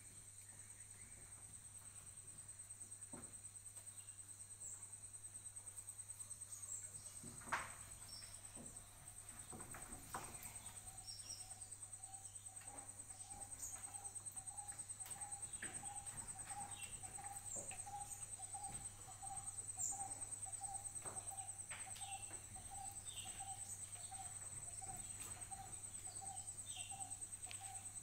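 Faint, steady high-pitched trill of insects, with a second, lower pulsing call joining about ten seconds in. Short bird chirps come and go over it.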